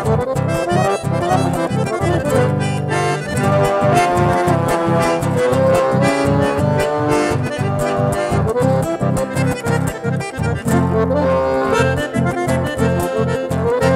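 Button accordion playing a lively chamamé melody over a steady rhythmic pulse, accompanied by an acoustic guitar.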